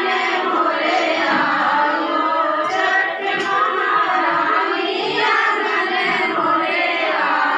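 A group of women singing a devotional folk song together in chorus, several voices overlapping without a break.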